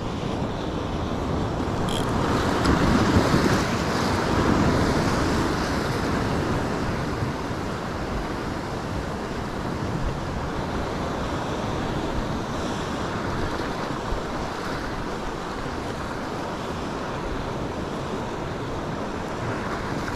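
Ocean surf washing against the rocks, with wind buffeting the microphone. The surge of water is loudest a few seconds in, then settles to a steady wash.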